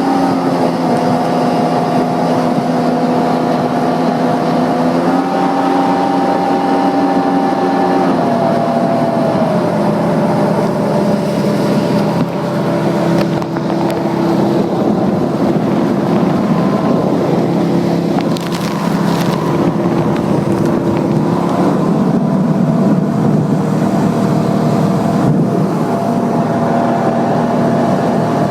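Jet ski engine running under way, its pitch stepping up and down a few times with the throttle, over a steady rushing noise.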